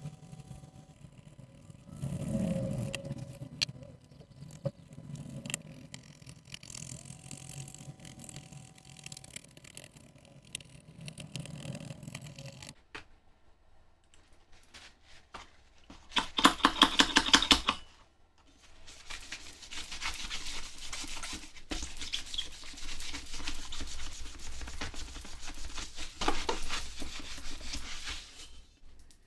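Old keypad adhesive being scrubbed and scraped off a panel by hand. Quieter handling noises come first; a little past halfway there is a short, loud burst of fast back-and-forth strokes, and then steady scrubbing goes on until near the end.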